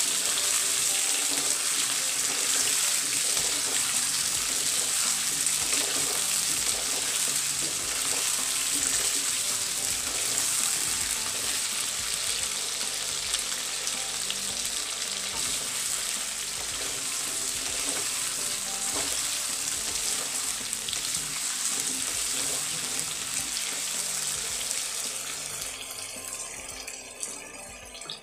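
Cubed potatoes sizzling steadily as they fry in hot oil in a karahi, with a wooden spatula now and then scraping through them as they are stirred. The sizzle fades near the end.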